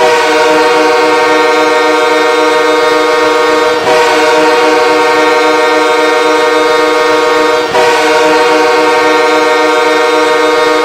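Shawinigan Cataractes' hockey goal horn blowing three long, steady blasts of nearly four seconds each, with only a brief break between them.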